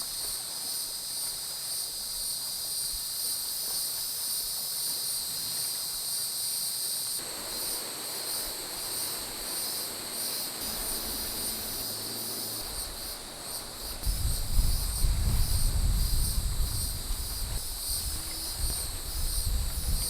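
Steady chorus of insects shrilling in several high bands, turning to a pulsing rhythm about a third of the way in. Past the middle a loud low rumble comes in over it.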